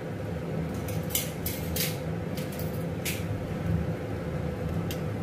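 Steel spoon clinking and scraping against a steel bowl of sugar syrup, a handful of short sharp knocks, most of them in the first three seconds, over a steady low hum.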